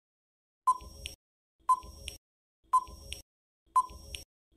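Quiz countdown timer sound effect: a short, sharp electronic tick once a second, four times, starting about two-thirds of a second in.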